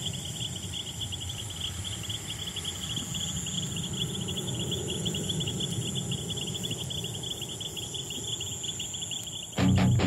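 Crickets chirping in a steady, fast-pulsing trill over a low rumble. Loud guitar music cuts in abruptly near the end.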